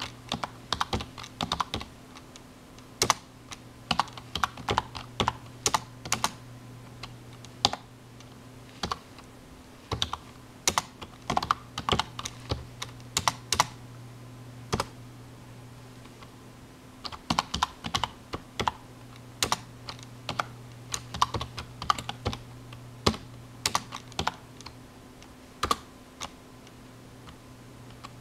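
Typing on a computer keyboard: irregular runs of keystroke clicks with short pauses, including a break of about two seconds about halfway through, over a steady low hum.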